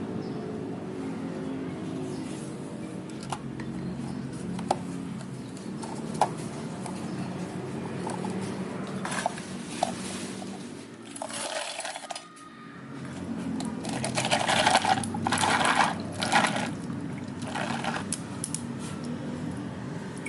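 Drink-making sounds: a few light clinks of glass or utensils, then liquid poured in several short bursts in the second half, over a steady low hum.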